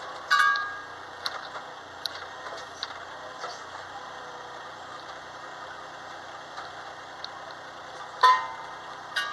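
Ride-on toy excavator's motor running with a steady hum while its arm and bucket are worked, with two loud sharp clanks that ring briefly, one just after the start and one near the end, and a few light ticks between them.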